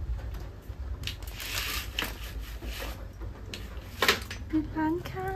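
Scattered light clicks and handling noises, then a cat meowing twice near the end, the second meow falling in pitch.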